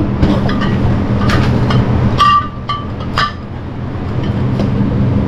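Glass beer bottles clinking against each other in a carry bag: a few sharp clinks, one of them with a short ringing tone, over a steady low hum.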